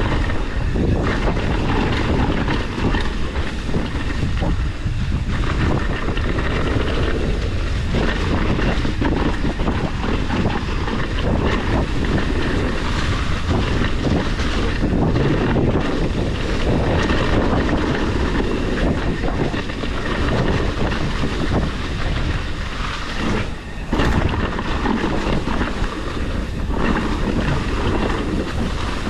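Mountain bike riding down a dirt trail: steady wind noise on the microphone, with the bike rattling and its tyres clattering over rough ground.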